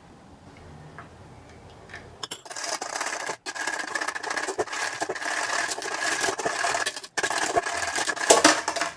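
A metal fork stirring tomato sauce in a glass bowl, scraping steadily against the glass from about two seconds in, with a few sharper clinks near the end.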